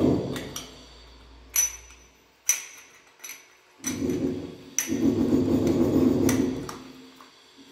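Sharp metallic clinks and taps as a chrome tumbler holder is worked onto its round wall flange, a string of separate knocks about a second apart. A louder, gritty low noise runs for about three seconds in the second half.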